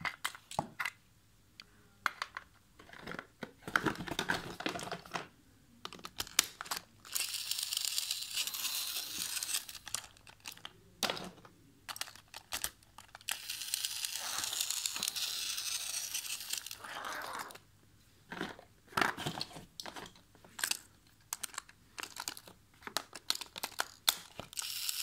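Rustling and crinkling handling noise in several long stretches, with scattered sharp clicks, as batteries are fetched. Near the end, a battery is pushed into a plastic Tomy toy train engine on plastic track.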